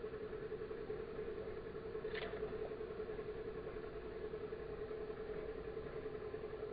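A steady engine hum at one low, even pitch, with a single short sharp snap about two seconds in as a bowfishing arrow is shot into the water.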